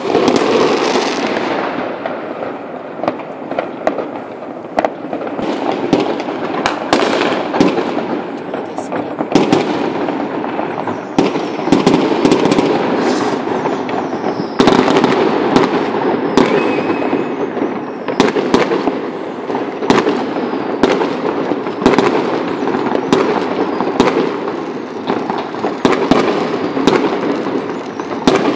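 Mass New Year's Eve fireworks and firecrackers going off all over a housing estate: a continuous crackle and rumble of many bangs near and far, with sharp loud reports every second or so. A short whistle sounds about halfway through.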